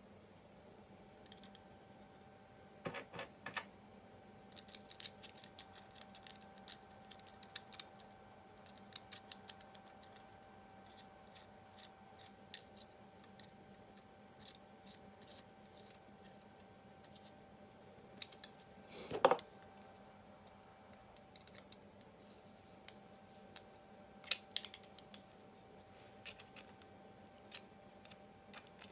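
Small metal parts of a restored hand tool clicking, tapping and scraping as it is reassembled, with a louder clack about two-thirds of the way through.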